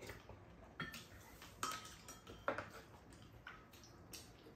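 Metal spoons and chopsticks clinking against ceramic bowls and a pan during a meal: about five light clinks, roughly a second apart.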